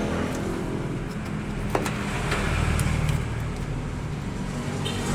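A motor vehicle engine running steadily, its pitch shifting slightly, with a single sharp click about two seconds in.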